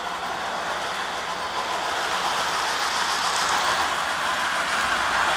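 Lionel LionChief Thomas & Friends O gauge train running on three-rail track, a steady rolling rumble of wheels and motor that grows louder in the second half as the train comes closer.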